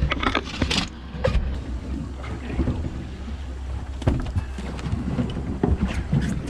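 Steady low hum of the boat's idling outboard motor, with irregular knocks and clatter as a large halibut and fishing gear are shifted about on the aluminium diamond-plate deck; a burst of knocks in the first second and single sharp knocks about four and six seconds in.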